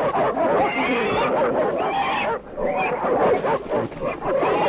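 Hunting dogs barking and yelping while they hold a wild boar at bay, and the boar squealing, in a continuous din of overlapping calls.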